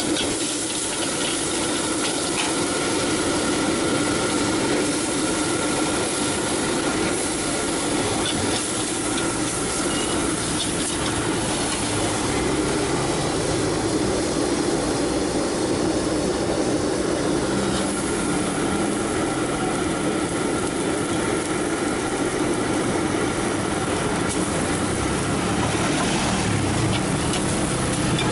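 Steady rushing of a wok burner under rice frying in the wok, with sizzling. Near the end a metal spatula scrapes rapidly against the wok.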